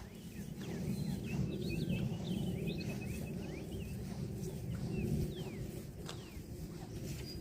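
Small birds chirping in short, quick calls, busiest in the first few seconds, over a steady low outdoor rumble.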